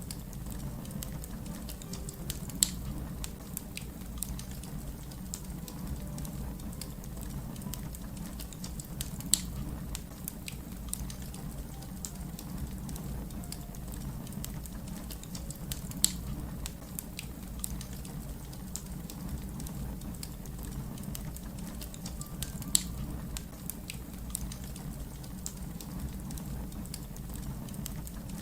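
Fire crackling: a steady low rumble with frequent small snaps and four louder pops spread through it.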